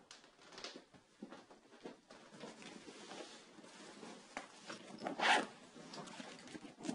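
Holdall bags handled on a wooden table: fabric rustling and scraping, with a zip pulled once about five seconds in as the loudest sound.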